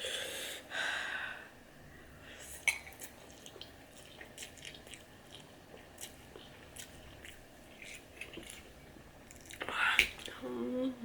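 A person chewing and eating spicy instant ramen noodles, with many small wet mouth clicks. There are loud breaths at the start and again a little before the end.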